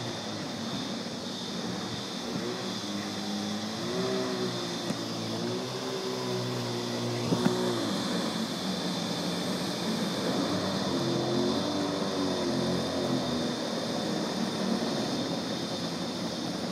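Small jet boat's engine running across the water, its pitch rising and falling as it revs, over a steady hiss. Two sharp clicks about seven seconds in.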